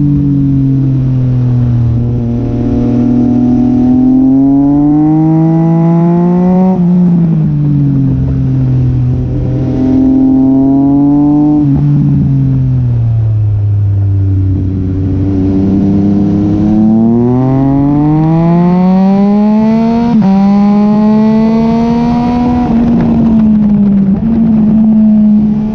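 Triumph Speed Triple RS three-cylinder engine heard from the bike's own tail while lapping a track: the engine note climbs under acceleration, drops sharply at gear changes several times, and falls away while the bike slows for corners, over steady rushing noise.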